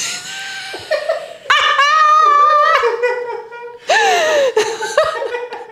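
A woman laughing, with a long, high-pitched squeal of laughter about a second and a half in and a falling laugh near the end.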